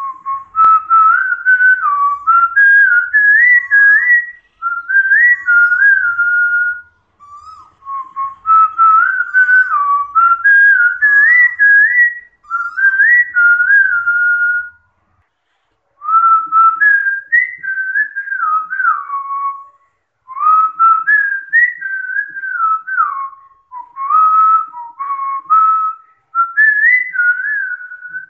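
A person whistling a tune by mouth, the melody stepping up and down in phrases of a few seconds with short pauses between them.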